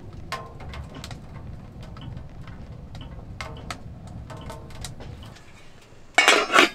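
A wood fire burning in a Mt.SUMI AURA wood stove: a low steady rumble with scattered crackles and pops. Near the end there is a short, loud metallic clatter as a metal pot lid is lifted.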